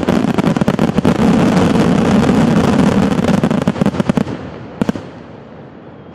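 Aerial fireworks display: a dense, loud barrage of rapid shell bursts and crackling that stops abruptly about four seconds in, followed by one last lone bang a moment later.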